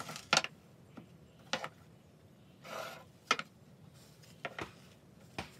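Plywood parts being handled and set down on a wooden workbench: about five sharp wooden knocks, the loudest early on, and a brief sliding scrape about halfway through.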